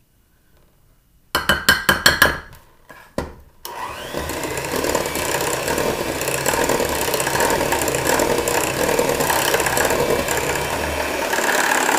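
A quick run of sharp knocks, then an electric hand mixer starts a bit under four seconds in and runs steadily, its beaters churning cake batter in a bowl.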